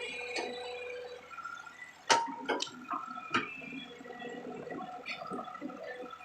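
Excavator digging in a wet pond bed: water and mud sloshing, with a few sharp knocks two to three and a half seconds in, the first the loudest.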